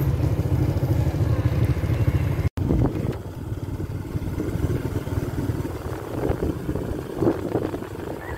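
Motorcycle engine running, heard from on the bike, with a steady low rumble. About two and a half seconds in it cuts out abruptly, and then comes back quieter and more uneven as the ride goes on.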